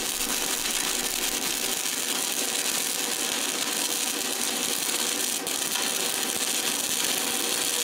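DC stick-welding arc from an Everlast PowerUltra 206Pi running a 5/32-inch rod at about 135 amps: a steady sizzling-bacon crackle as the bead is laid.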